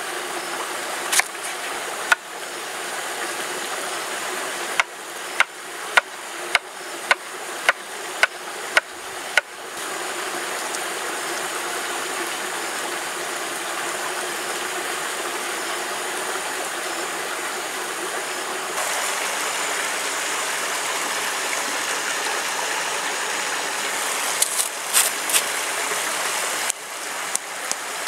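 Knife chopping on a wooden cutting board: a run of sharp taps about two a second for several seconds, with a couple of single taps before it and a few more knocks near the end. A stream runs steadily underneath.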